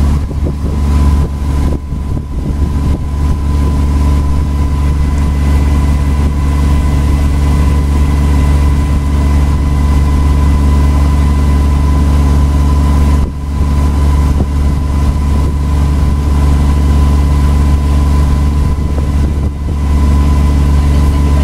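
Tour boat's engine running steadily under way, heard from on board as a loud, even low hum with a thin steady whine above it; it dips briefly about two-thirds of the way through.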